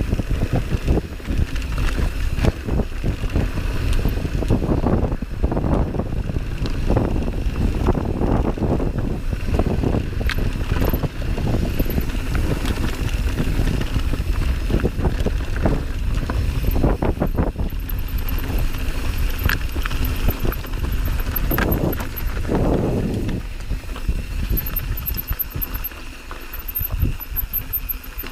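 Mountain bike riding over a dry dirt and loose-stone trail: tyres rolling over the gravel and the bike rattling and knocking over bumps, without a break.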